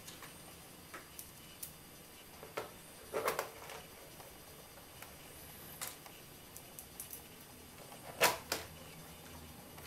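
Small screws and a screwdriver clicking and tapping against the plastic underside of an Acer Aspire 5680 laptop as the screws are put back in. Scattered light clicks, a louder knock about three seconds in, and the loudest pair of knocks a little after eight seconds.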